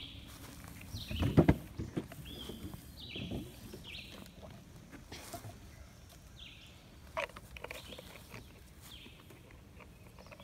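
Footsteps on the leafy forest floor with a few dull thuds in the first two seconds, while a bird repeatedly gives short, high, down-slurred calls.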